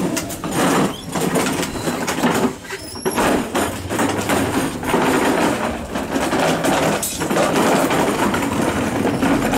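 Plastic toy dump truck dragged over gravel and rough ground, its wheels and body rattling and crunching continuously.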